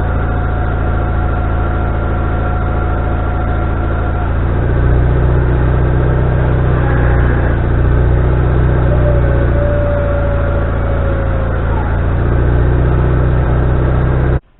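Wood-Mizer LT40HD sawmill's gasoline engine running loud, its note shifting a few times, with a thin high whine over it; it stops abruptly near the end. The owner takes the uneven running for the engine losing power from a fuel supply problem: air bubbles, a leak or the carburetor.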